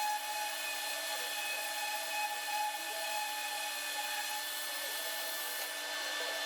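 Wood being sanded, a steady scratchy rubbing with a steady whine, typical of a power sander working the teak tabletop before staining.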